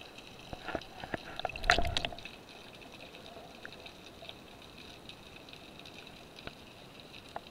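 Underwater sound heard through an action camera's waterproof housing: scattered clicks and crackles over a steady hiss, with one brief louder rush of water about two seconds in.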